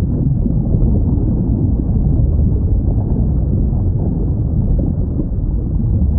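Steady low underwater rumble of ocean ambience, with no distinct whale calls standing out.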